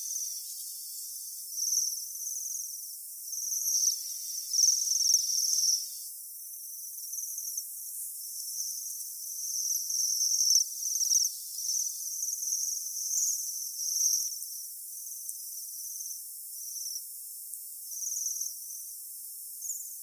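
Japanese waxwings calling: a string of high, thin trills, one after another and sometimes overlapping, as from a flock.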